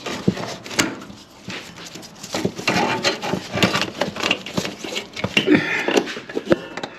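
Irregular clicking and clinking of metal parts handled by hand while a transmission shifter cable is worked into its fitting.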